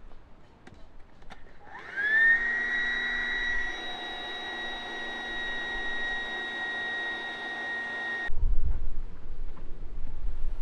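A small motor whines up to speed within a fraction of a second, runs at a steady high pitch for about six seconds, then cuts off abruptly, followed by wind rumble on the microphone.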